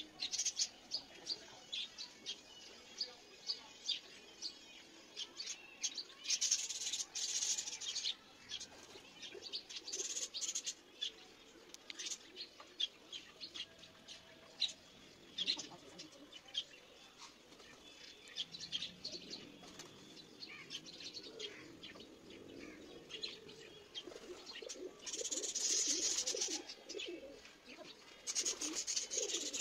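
Flock of domestic pigeons at feed: wings flapping in short bursts with many quick clicks, two longer flurries of wingbeats about seven seconds in and again near the end, and soft cooing.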